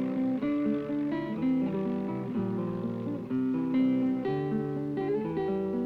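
Acoustic guitar soundtrack music: a tune of plucked notes and chords, the notes changing every fraction of a second.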